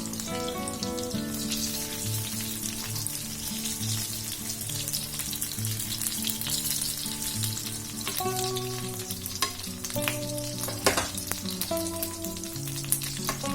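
Marinated chicken 65 pieces deep-frying in hot oil in a pan: a steady sizzle with frequent small pops, and a few sharper clicks in the second half. Background music plays underneath.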